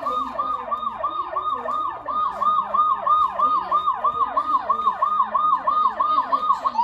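Electronic police siren from a child's ride-on toy police car's speaker, sounding a fast repeating yelp: falling sweeps, about three a second.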